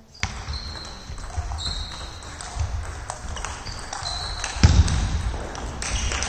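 Table tennis rally: the ball clicking off bats and table, sports shoes squeaking on the hall floor, and heavy footwork thumps, the loudest about four and a half seconds in.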